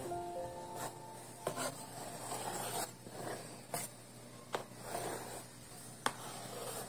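A spatula spreading and smoothing whipped cream on the sides of a cake: repeated soft scraping and rubbing strokes with a few light clicks.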